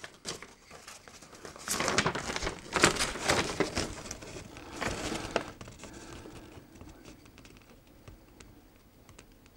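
Large fold-out paper instruction sheet being unfolded and handled, crinkling and rustling in uneven bursts that die away about two-thirds of the way through.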